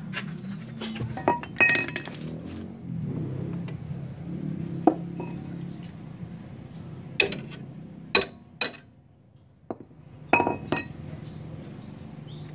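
Metal tools and parts clinking against each other in a handful of sharp, irregular strikes, some ringing briefly, over a low steady hum.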